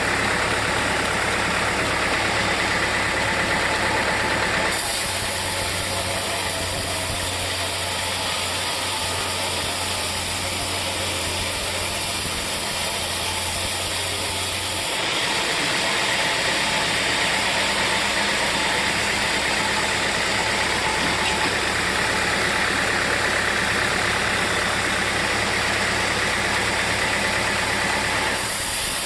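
Sawmill machinery running steadily, a dense engine-driven noise with a low hum. The sound changes abruptly about five seconds in, again about fifteen seconds in, and once more near the end.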